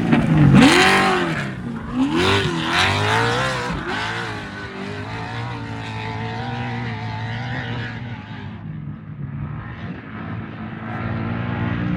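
Off-road race truck engine revving hard, its pitch swooping up and down several times in the first few seconds, then running at a steadier pitch as it fades away, and growing louder again near the end.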